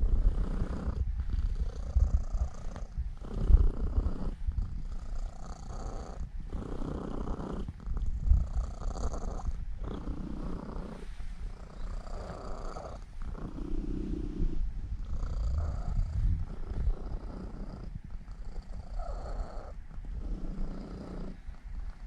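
Norwegian Forest Cat purring steadily, a low rumble that swells and fades with each breath about every one and a half to two seconds.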